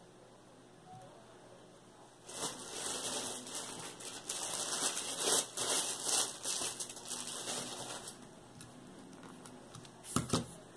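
Thin plastic bag crinkling and rustling for about six seconds as a lump of modelling clay is handled in it, then a couple of sharp knocks near the end.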